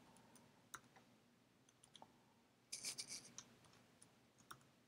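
Faint computer-keyboard typing: scattered single keystroke clicks, with a quick run of several keystrokes about three seconds in.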